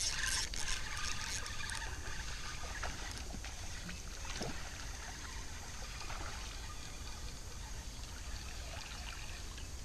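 Faint trickling and splashing water over a low steady rumble, with a few soft ticks.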